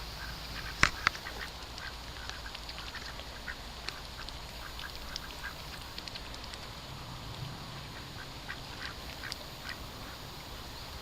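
Ducks quacking: many short, scattered calls at irregular intervals. Two sharper clicks come about a second in.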